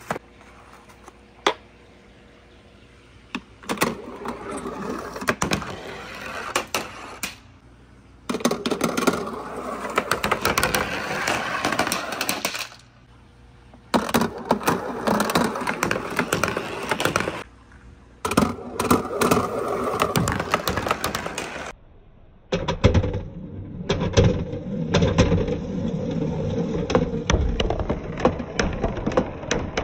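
Billiard balls rolling down a handmade wooden marble run, a continuous clattering rattle of the balls knocking on the track, its rails and each other. It comes in several runs, each a few seconds long, with short pauses between them.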